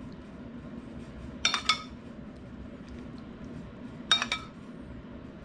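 A metal spoon clinking against a dish while sauce is spooned over the food: two quick ringing clinks about a second and a half in, and another couple just after four seconds.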